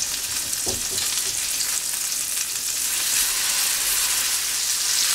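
Turkey chops sizzling in hot butter and oil in a stainless steel skillet as they are turned over, with a soft knock against the pan about a second in. The sizzle grows a little louder about three seconds in.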